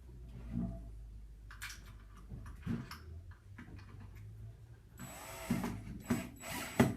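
A wood screw being fitted and driven into the electronic deadbolt's inside unit under the battery compartment: short scrapes and clicks of the screwdriver and the lock's plastic and metal parts, the loudest near the end.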